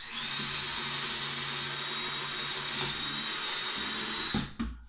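Yellow cordless drill running steadily at full speed with a high, even whine, boring a pilot hole through a wooden board for a jigsaw blade. It stops about four seconds in, followed by a couple of low knocks.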